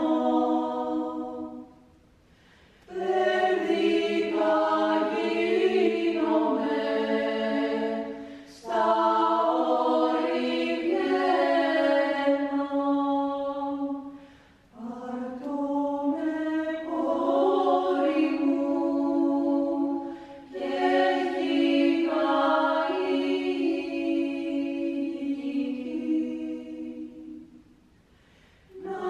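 Women's choir singing a cappella in sustained chords, in long phrases. A pause of about a second comes near the start and another near the end, with brief breaks between the phrases.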